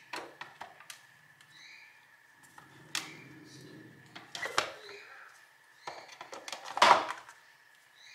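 Small paper cartons of tomato juice being set down and knocked into a clear plastic storage bin: a scattered series of light knocks and scrapes, the loudest about seven seconds in.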